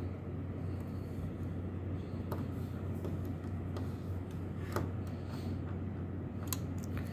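A few sparse small clicks as a screw is driven into an OPS computer module's case by hand, over a steady low hum.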